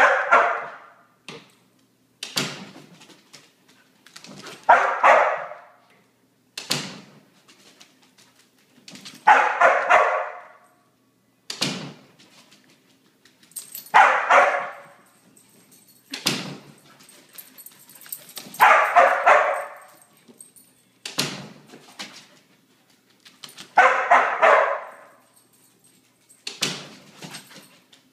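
Border collie barking over and over, a short sharp bark and then a longer run of barking in turn, every two seconds or so.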